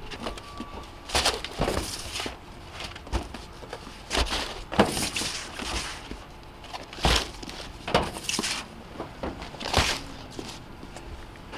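Cardboard boxes being set down and slid across a pickup truck's bed: a string of irregular thumps and scrapes.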